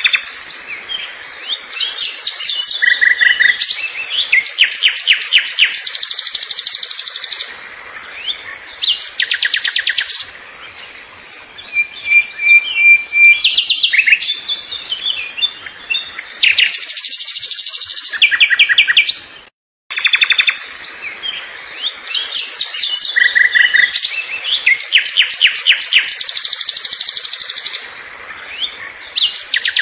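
Songbirds singing: quick runs of high chirps and rapid trills, with a single steady whistled note about 12 seconds in. After a brief dropout about 19.5 seconds in, the same passage of song plays again as a loop.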